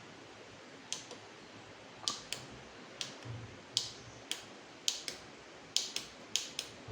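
A series of light, sharp clicks, about a dozen, spaced unevenly over a faint steady hiss.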